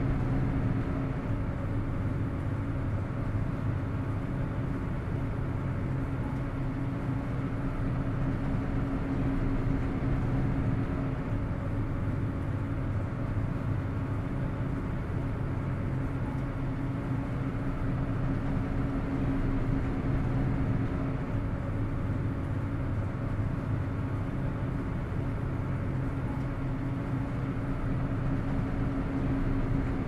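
Steady low drone of a ferry's engines: a deep hum with a few held tones over an even wash of noise.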